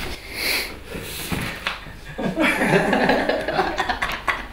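A man laughing, chuckling and breathing out in short gusts as he breaks up during a take.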